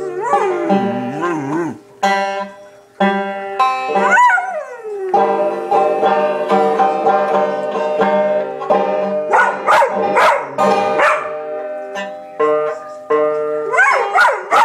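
A dog howling along to banjo music: several bouts of wavering howls that slide up and down in pitch over the steady plucked banjo notes.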